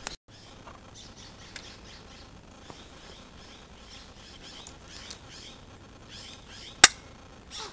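Faint bird chirps in the forest, broken near the end by a single sharp crack of an airsoft gun shot.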